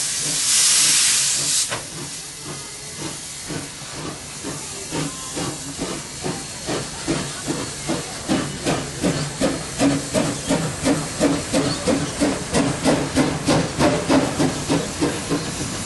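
BB18¼ class 4-6-2 steam locomotive working a train. A loud steam hiss cuts off sharply at the start, then exhaust chuffs grow louder and quicken to about three a second as the locomotive gets the train under way.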